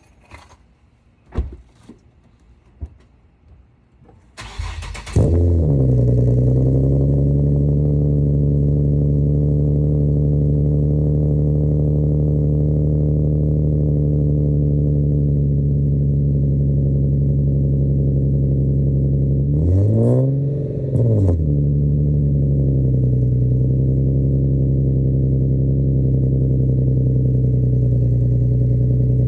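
A few light clicks, then a car engine is cranked by the starter and catches about five seconds in, flaring up and settling to a steady idle through an exhaust fitted with an added resonator. Around twenty seconds in it is revved once briefly, then drops back to idle.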